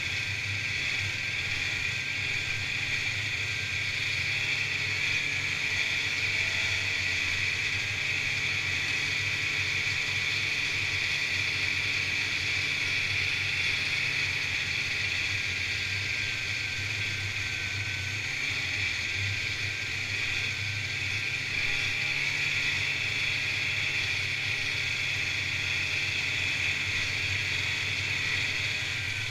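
Snowmobile engine and track running steadily while the sled cruises along at an even speed.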